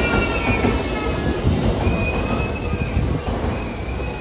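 JR East E7 series Shinkansen pulling out of the station, its cars rolling past with a steady rumble of wheels on rail and high, thin wheel squeals that come and go. The rumble eases slightly as the last car passes near the end.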